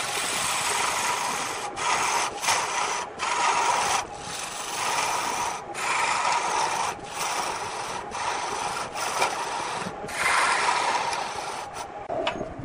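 Lathe gouge cutting into spinning wood, a loud continuous scraping hiss. It is broken by short breaks about once a second as the tool lifts off between passes. Near the end the cutting stops.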